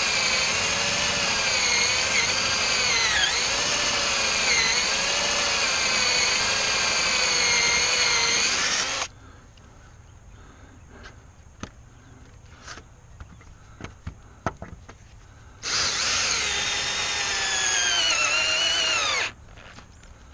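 Cordless drill spinning a small homemade hole-saw bit into an old wooden fence board. The motor whine wavers up and down as the bit is wobbled and bites, then stops about nine seconds in. After a pause with a few small knocks, it runs again for about four seconds, its pitch sagging under load before it stops.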